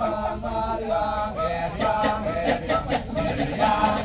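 Kecak chorus of many male voices chanting unaccompanied: held sung notes in short phrases over quick, sharp 'cak' syllables.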